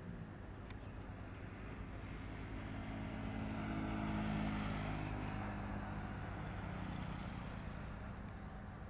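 Jet airliner engines running at taxi power, a steady hum with a hiss above it that swells to its loudest about four seconds in and then slowly fades.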